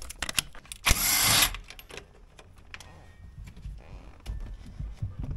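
A Honda Civic's factory steering wheel being worked loose and pulled off the steering column: a series of clicks and knocks, with a loud scraping rub about a second in.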